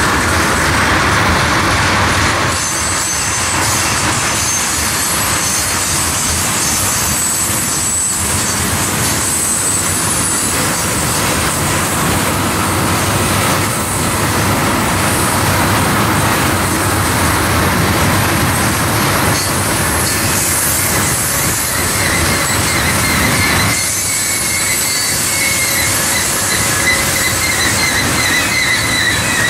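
Tank cars of a freight train rolling past: a loud, steady rumble and rattle of steel wheels on the rails, with high wheel squeal that wavers in pitch, clearest in the last third.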